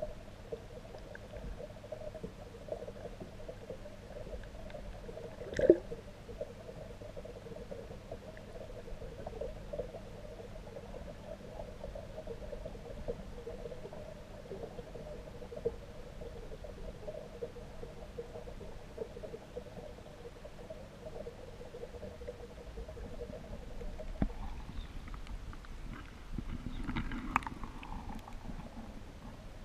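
Aquarium pump humming steadily, with one sharp click about six seconds in. Near the end the hum fades, then comes a knock and a short spell of rustling and scraping.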